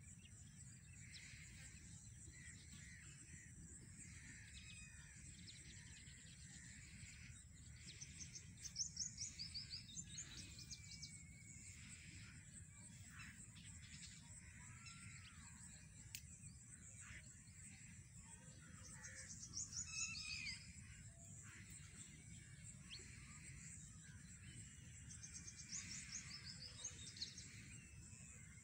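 Faint rural outdoor ambience: small birds chirping, with quick runs of short chirps about eight, twenty and twenty-six seconds in, over a steady high hiss and a low rumble of wind.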